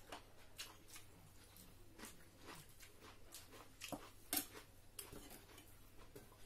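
Quiet eating at a table: scattered light clicks and taps of a metal spoon against a pan and plates, with chewing, one sharper click about four seconds in.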